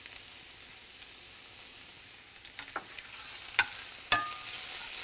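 Minced onion and tomato paste sizzling softly in butter in a stainless steel sauté pan. A spatula stirs the mixture, and in the second half it knocks against the pan a few times. The loudest knock leaves a brief metallic ring.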